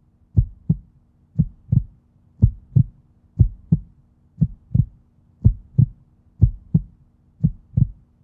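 Heartbeat sound effect: a steady lub-dub, paired low thumps repeating about once a second.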